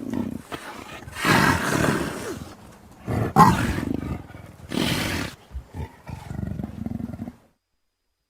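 Big-cat roars and snarls, recorded clips of leopard, cougar and lion roars edited together one after another with short gaps. The loudest come about a second, three seconds and five seconds in, a lower growl follows, and it all stops about seven seconds in.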